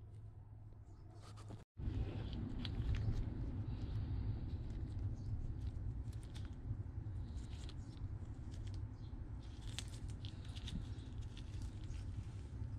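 Small clicks and rustles of red plastic PowerTwist link-belt sections being handled and fitted together in gloved hands, over a steady low hum.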